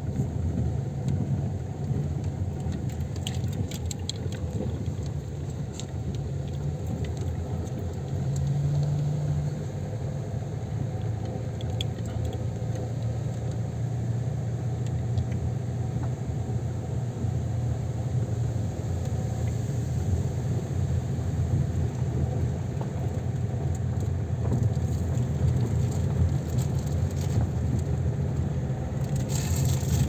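Car engine and road noise heard from inside the cabin while driving: a steady low rumble, with the engine hum shifting pitch now and then. Faint light rattles or ticks sound over it.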